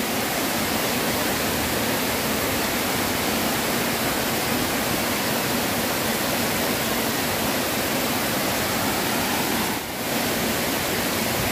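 Steady rush of river water pouring down a weir spillway into the pool below. The level dips for a moment about ten seconds in.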